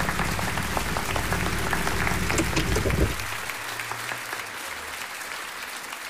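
Theatre audience applauding, the clapping loudest for the first three seconds and then thinning out.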